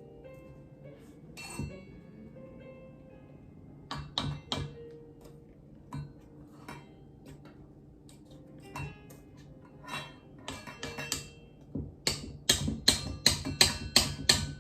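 A utensil clinks and knocks against a mixing bowl as batter is mixed by hand, scattered at first and then a fast run of loud knocks near the end. Soft music plays under it.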